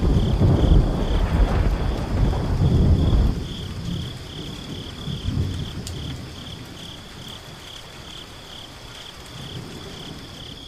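Thunderstorm sound effect: thunder rumbles loudly for the first three seconds or so, then fades into steady rain, with a high chirp repeating about twice a second.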